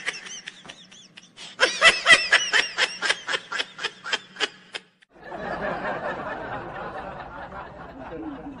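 A man laughing hard: a short burst, then a long run of quick laughs, about four or five a second, that stops about five seconds in. A steadier, hazier sound follows to the end.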